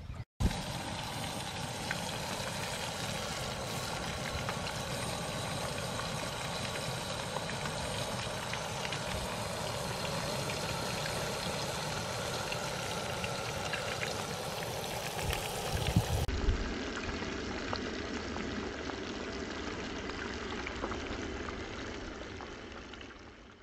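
Oil sizzling steadily as breaded fish fillets fry in a cast iron skillet on a camp stove, with a couple of brief knocks about sixteen seconds in.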